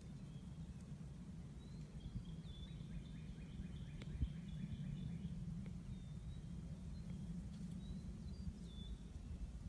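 Outdoor background: a steady low rumble with faint, short bird chirps scattered through, and a quick run of high ticks a few seconds in.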